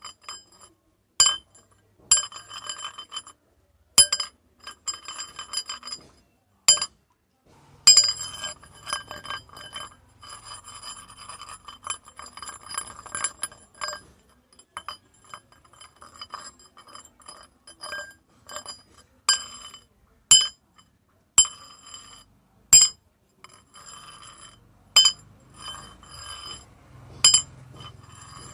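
Metal rods striking one another, each clink ringing on at the same few bright, high pitches. Single strikes come irregularly, with a longer spell of quick rattling clinks about a third of the way in.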